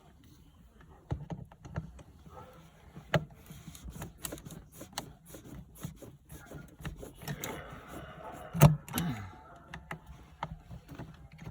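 Irregular clicks, taps and rattles of hands working a Honda Civic's shift cable fitting and linkage parts loose, with one loud sharp knock about eight and a half seconds in.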